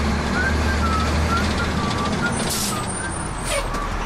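Fire engine heard from inside its cab in slow traffic: the engine runs steadily under road rumble, with a faint wavering high tone coming and going. Two short bursts of hiss come about two and a half and three and a half seconds in.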